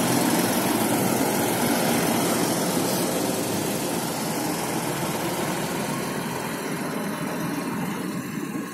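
Fendt 716 tractor's diesel engine running under load as it tows a combine harvester on a tow bar through snow, the sound gradually fading as the tractor moves on.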